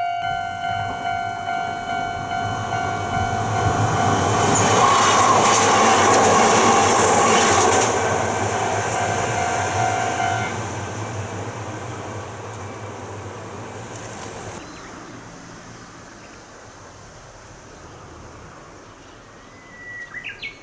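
Japanese railway level-crossing alarm pulsing steadily while a train passes over the crossing. The alarm stops about ten seconds in, and the train's noise fades away a few seconds later.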